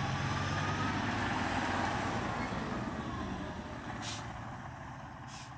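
Fire truck driving past, its heavy diesel engine and road noise swelling to a peak about two seconds in, then fading as it moves off. Two short, sharp hisses come near the end.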